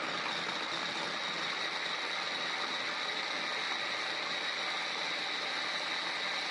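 Food processor motor running steadily, blending flour, sugar substitute and cold butter into a dry mix: an even whir with a constant high whine.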